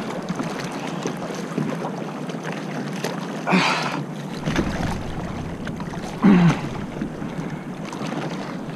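Water sloshing against a stand-up paddleboard with wind on the microphone, broken twice, about three and a half and six seconds in, by a short wordless voice sound from the angler straining against a hooked fish.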